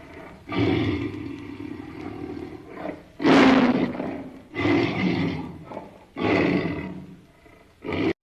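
Tiger roar sound effect: a series of about five deep roars, the loudest about three seconds in, cutting off abruptly near the end.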